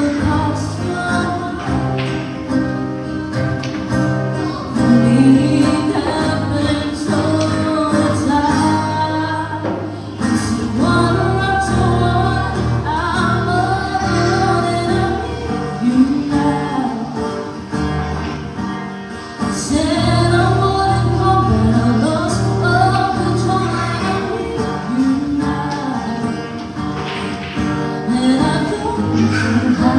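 Live acoustic performance: a vocalist singing a slow song into a microphone, accompanied by a strummed acoustic guitar.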